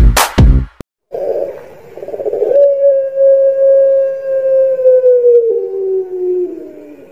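Caged ringneck (Barbary) dove cooing: one long drawn-out coo, the 'suara panjang' style, that holds a steady note, slowly sinks in pitch, then drops a step lower near the end.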